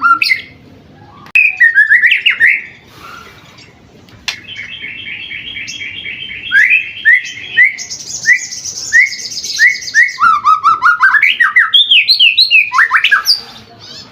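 Young white-rumped shama (murai batu) singing a loud, varied song. It gives clear whistled phrases, a long rattling trill, and a run of quick down-slurred notes about two a second, with a thin high trill over them. Rising and falling whistles come near the end.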